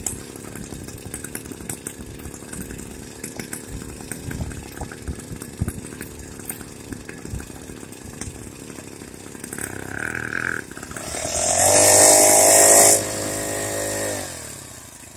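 Small motorized-bicycle engine running with a rattle. About two-thirds through it revs up, its note rising under a burst of loud hiss, then falls away and fades near the end.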